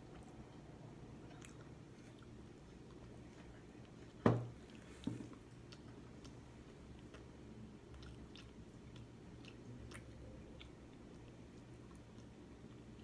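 A person chewing pizza close to the microphone, faint, with small mouth clicks. A sharp knock about four seconds in, the loudest sound, is followed by a smaller one a second later.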